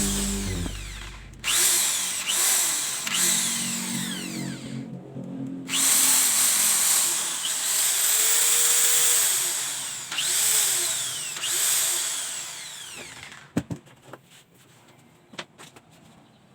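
NRT Pro electric drill running in repeated bursts, its motor whining up to speed and winding down each time the trigger is pressed and released, with its trigger switch lever newly replaced. The runs stop about 13 seconds in, and a few sharp clicks follow.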